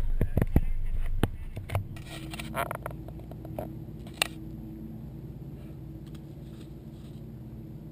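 A few sharp knocks and bumps of handling close to the microphone, then from about two seconds in a steady low hum of a boat engine idling.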